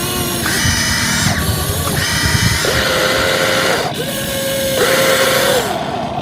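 Electric motors of a radio-controlled construction machine whining in short runs, stopping and starting again about four times as it is worked.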